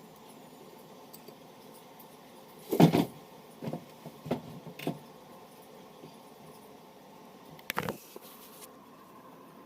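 Handling noises on a work surface: a loud knock with a short rattle about three seconds in, a few lighter clicks over the next two seconds, and another brief clatter near the end, over a faint steady background hum.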